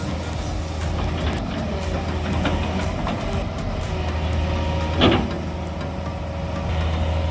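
Heavily loaded logging truck's diesel engine running steadily with a low hum while the truck travels a dirt road, with a rattle of clicks and one sharp knock about five seconds in.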